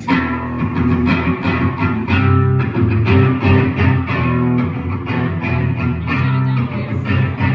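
Electric guitar strumming chords in a quick rhythm through the PA at a sound check, starting abruptly. The tone is loud and bright enough that the engineer asks for it turned down and the treble rolled off.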